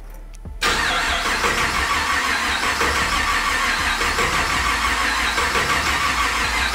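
LS3 V8 being cranked over by its starter motor, starting suddenly about half a second in and running steadily without the engine catching: a failed first key start.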